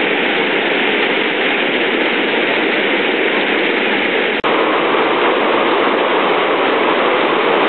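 Whitewater rushing over a river weir: a steady, loud rush of water. It breaks off for an instant about four seconds in, then carries on.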